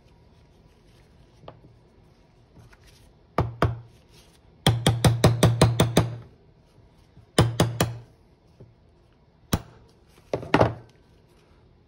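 Hammer tapping a shaft seal into the bore of a new Bafang M600 final drive gear with sharp strikes: two taps, a quick run of about nine, then three more, a single tap and a last pair.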